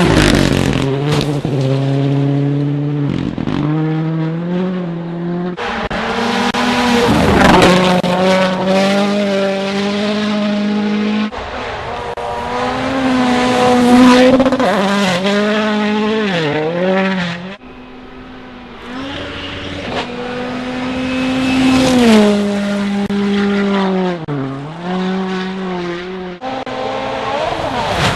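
WRC rally car engine running hard, its pitch climbing and dropping over and over as the throttle is worked. Several passages change abruptly into one another.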